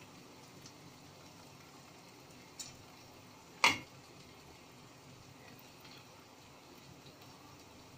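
Okra curry cooking in a kadai over a gas burner: a faint steady hiss, with a light tap about two and a half seconds in and a sharper clink at the pan a little after three and a half seconds.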